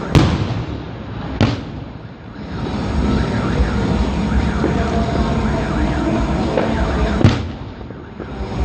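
Fireworks display: three sharp explosions, just after the start, about a second and a half in, and about seven seconds in, over a continuous din of smaller fireworks with faint whistling glides.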